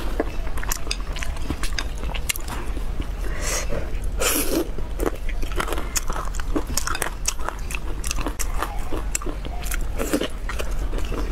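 Close-miked mouth sounds of a person eating braised pork: chewing and biting, with many short smacks and clicks and one longer, louder burst about four and a half seconds in.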